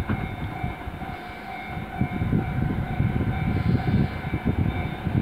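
DF200 diesel-electric locomotive hauling a freight train, approaching in the distance: a steady engine drone with a few steady tones over a low rumble, growing louder about two seconds in.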